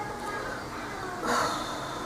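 A girl's single hiccup about a second in: one short, sharp catch of breath.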